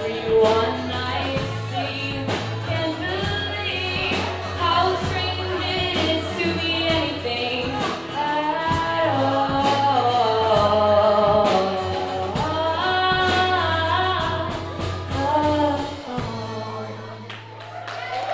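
Live indie rock band playing the closing section of a song: a female-led wordless sung melody over strummed acoustic guitar, a steady low bass note and drums. The drums stop about 16 seconds in, leaving a last low note ringing out as the song ends.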